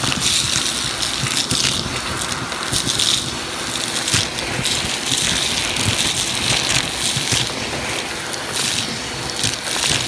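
Vacuum cleaner running, its hose nozzle sucking up dirt and small pebbles off cardboard: a steady rush of air over a faint motor hum, with grit and stones clattering up the hose throughout.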